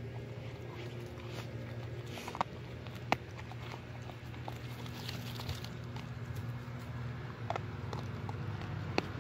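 German Shepherd puppy chewing and crunching a whole raw fish, with a few sharp cracks every couple of seconds over a steady low hum.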